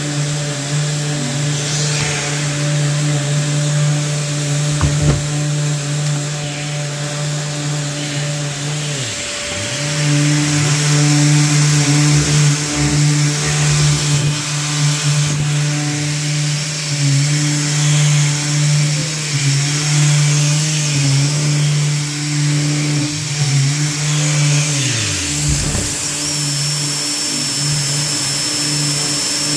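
Shop vacuum dust extractor running steadily with a low hum, under the sound of a SurfPrep electric sander scuffing a primed cabinet door. The motor pitch sags and recovers twice. Near the end the hose's brush attachment sucks dust off the door and a thin high whistle joins in.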